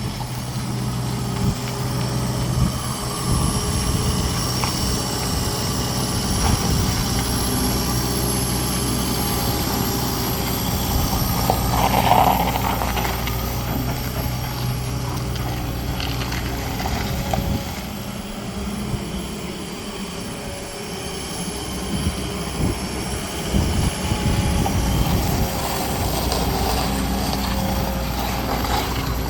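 New Holland LS-170 skid steer loader's diesel engine running steadily, with a thin high whine on top; the engine's hum changes about two-thirds of the way through.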